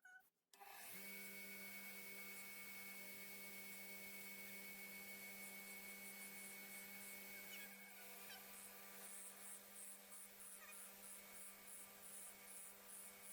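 Small electric bench power tool's motor running steadily at low volume: a constant hum with several steady higher tones, starting abruptly under a second in. A higher tone drops out about halfway, and faint rapid ticking, about three a second, runs through the second half.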